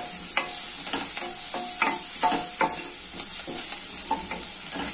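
Onions and garlic sizzling in hot oil in a nonstick kadai, stirred with a wooden spatula that scrapes and knocks against the pan about two to three times a second.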